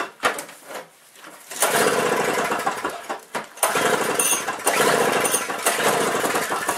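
Two-stroke single-stage snowblower engine on a cold start, pull-started and firing in two bursts of a second or two each, dying out in between. It does not keep running.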